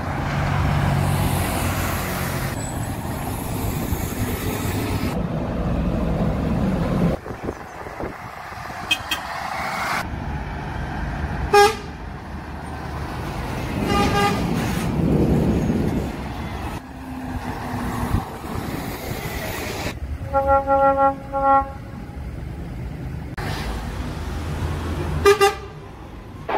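Buses and lorries driving past, their engine and tyre noise changing abruptly every few seconds, with several short lorry horn toots. These include a run of quick repeated toots about two-thirds of the way through and a single loud toot near the end.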